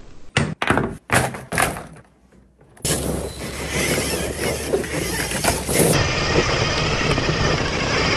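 Radio-controlled off-road truck driving over dirt: several sharp knocks in quick succession, a brief lull, then about three seconds in a dense, steady rough running noise that carries on.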